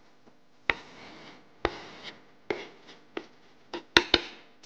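A chef's knife scraping and tapping chopped vegetables off a wooden cutting board into a pan: several sharp knocks of blade and board, with softer scraping between.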